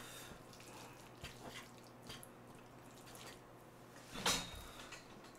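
Faint wet sticking and scraping of sauced instant black-bean noodles (Jjapaghetti) being stirred with a wooden utensil in a frying pan, with one louder short sound about four seconds in.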